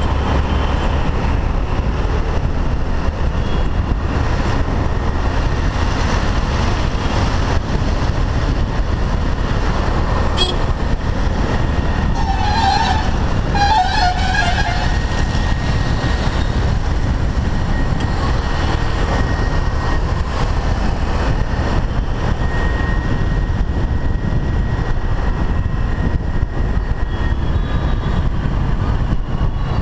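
Steady wind rumble and road noise from riding a Honda Navi through city traffic, with a vehicle horn honking twice in quick succession about halfway through.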